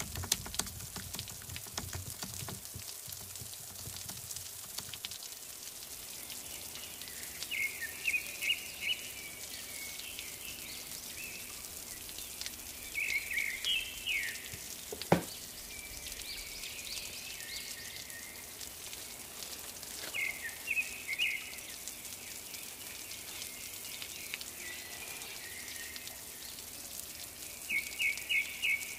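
Faint, steady crackling hiss with four short runs of high chirps, like small birds calling, spread through it. A single sharp click comes about halfway through.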